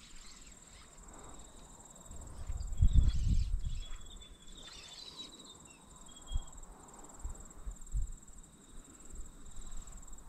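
A steady, high-pitched insect chorus with a fine, fast pulse, with a few short chirps over it in the middle. A low rumble about three seconds in is the loudest sound, and a few soft low knocks follow.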